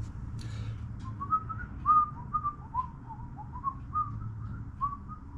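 A man whistling an idle tune of short notes that rise and fall, over a low steady hum.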